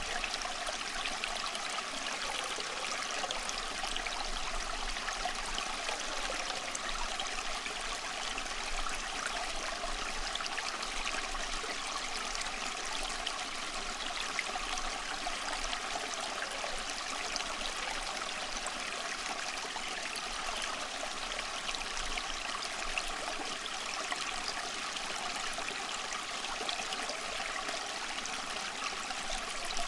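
Steady rushing of running water, like a stream or brook, unchanging throughout, with faint steady tones underneath.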